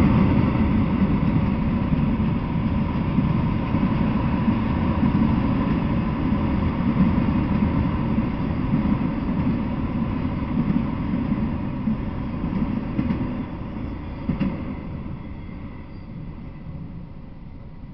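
Freight train of autorack cars rolling past on the rails, a steady low rumble of wheels that fades away over the last few seconds as the end of the train goes by.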